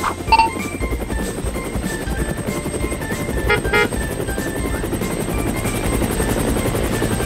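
Helicopter rotor sound effect: a steady, rapid chopping. Light background music plays with it, and a few short bright notes come about halfway through.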